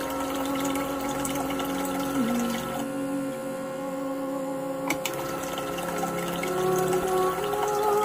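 Water pumped by a peristaltic pump trickling through tubing into a glass jar, with a few sharp clicks. Steady tones run underneath.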